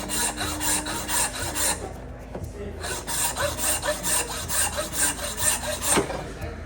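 A hand tool worked back and forth across a piece of pipestone (catlinite), scraping at about four strokes a second, in two runs with a short pause between them.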